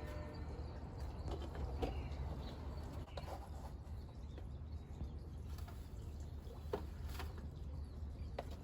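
Quiet background: a steady low rumble with a few faint scattered clicks and short high chirps.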